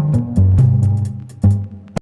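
Intro music with a plucked bass line and a sharp, regular beat, cutting off abruptly at the end.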